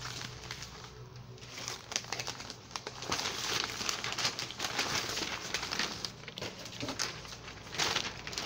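Newspaper sheets rustling and crinkling as they are handled, flipped and folded. The rustling is loudest from about three seconds in and again near the end.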